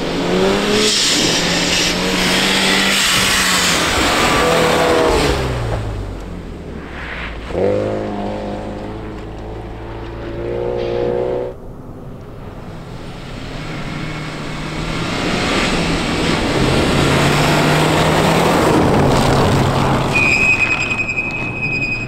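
Turbocharged four-cylinder rally car engines revving hard on a snow track, pitch climbing and dropping through gear changes as a car approaches. The sound breaks off abruptly about halfway through, then another car's engine builds up louder toward the end.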